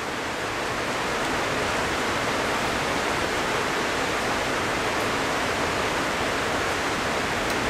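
A steady rushing hiss that swells slightly over the first second and then holds level.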